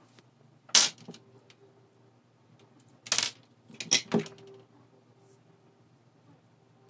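Short metallic clinks of hand tools being handled on a workbench: one sharp clink about a second in, then three more close together around three to four seconds in as the soldering iron is taken up.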